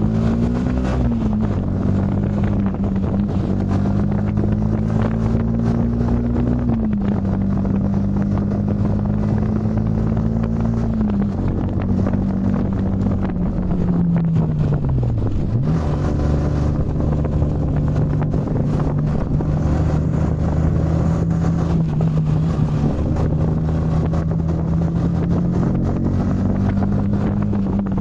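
Yamaha MT-15's single-cylinder engine running while the bike is ridden, its pitch stepping down a couple of times, sliding down about halfway through and then picking up again and holding steady. Wind buffets the microphone throughout.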